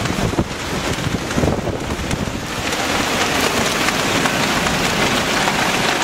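Heavy wind-driven rain and strong gusting wind from a bow echo squall line's downdraft, with the wind buffeting the microphone. The rain hiss grows heavier from about halfway through.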